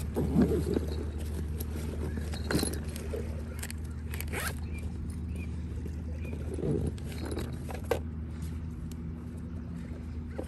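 Steady low engine hum, with a few scattered knocks and scrapes.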